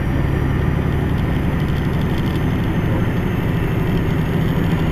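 Semi truck's diesel engine and road noise heard from inside the cab while driving at a steady speed: a constant low drone.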